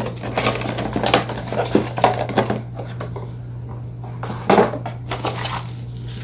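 Packaging and small parts being handled during an unboxing: irregular rustling, clicks and light plastic clatter, loudest about four and a half seconds in, over a steady low hum.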